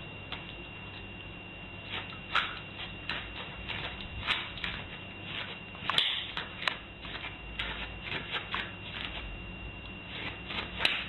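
A small puppy's paws scratching and clicking on a doormat and tile floor: scattered light clicks and scratches, with a steady faint high whine and low hum from the recording underneath.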